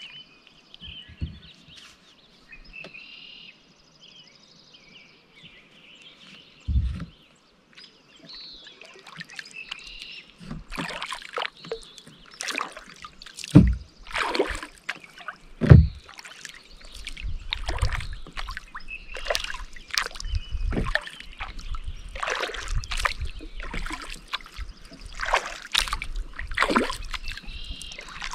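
Birds chirping over a quiet lake, then kayak paddle strokes starting about ten seconds in: each blade dip splashes and trickles water, with two sharp low thumps near the middle.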